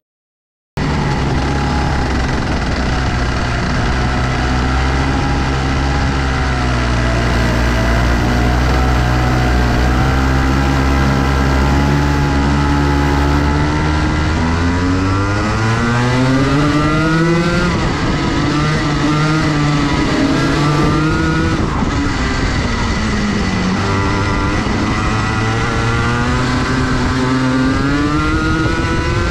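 Rotax Max 125cc two-stroke kart engine running at racing speed, heard from the driver's seat. Its pitch holds fairly steady through the first half, climbs steeply on the straight about halfway through, drops sharply on braking, then rises and falls through the corners.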